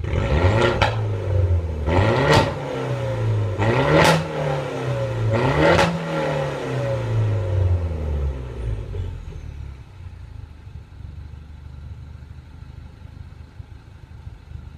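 2009 Mini Cooper S 1.6-litre turbocharged four-cylinder revved four times in quick succession through an exhaust with the resonator and secondary catalytic converter removed, each rev rising and falling with a sharp pop at its peak. The engine then drops back to a steady idle about nine seconds in.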